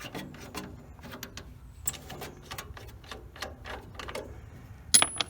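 Irregular small clicks and light metallic rattles of hands working with tools or parts, with one sharper click near the end.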